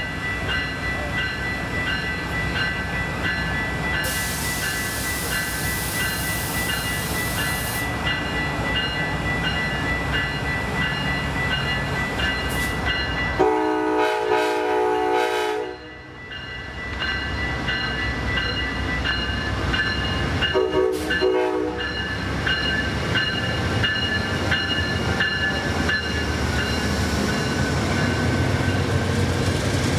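Train running at the station with a steady low rumble, its horn sounding twice: a blast of about two seconds near the middle and a short one about seven seconds later. A hiss lasts about four seconds, starting some four seconds in.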